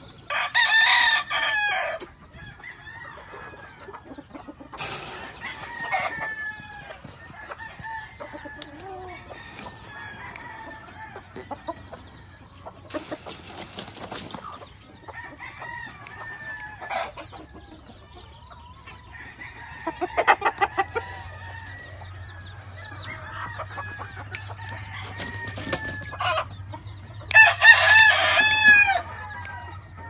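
Gamefowl roosters crowing: two loud crows, one at the start and one near the end, with quieter calls from other birds in between.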